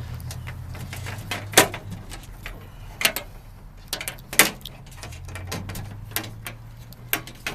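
Sharp metallic clicks and knocks, about five or six spread irregularly, from hand tools working on a power strip's brass contact pieces as it is taken apart for scrap. A low steady hum runs underneath.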